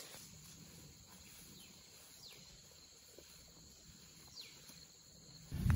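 Quiet countryside ambience with a few faint, short falling chirps spread through it. A low rumble comes in near the end.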